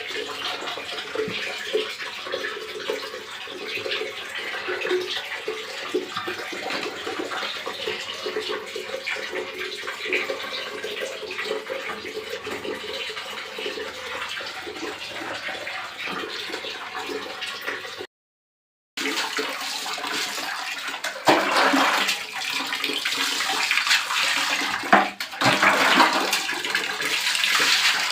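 Water running and splashing, likely a pet pot-bellied pig being bathed. It stops dead for about a second two-thirds of the way in, then comes back louder and choppier.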